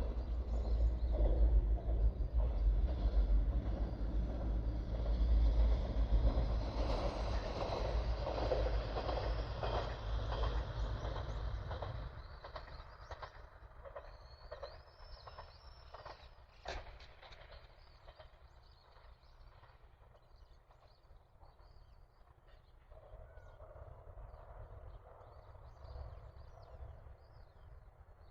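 A train running past, its low rumble and wheel noise loud at first and then dying away about twelve seconds in. Faint bird chirps follow, and there is a single sharp click near the end.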